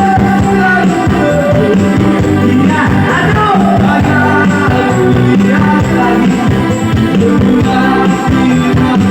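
Loud music with singing and a steady bass beat, played through a four-way sound system during a sound check.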